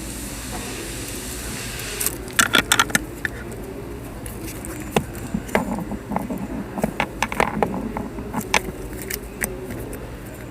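Small metal parts clicking and rattling as a glove box lock cylinder and its cover are handled. A quick cluster of clicks comes about two seconds in, and scattered clicks follow after that.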